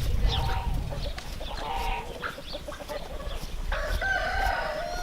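Rooster crowing, with a couple of short calls and then one long crow starting near the end.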